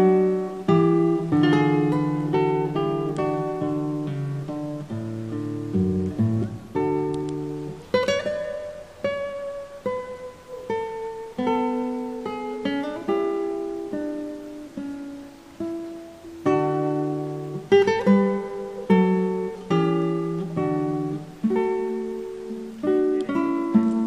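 Background music: acoustic guitar picking single notes and chords, each note struck and then ringing away, in a steady unbroken run.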